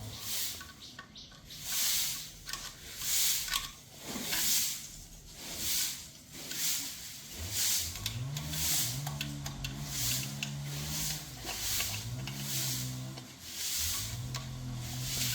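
Rhythmic back-and-forth abrasive rubbing by hand, a short hissing stroke about one and a half times a second, as a motor part is worked over during restoration.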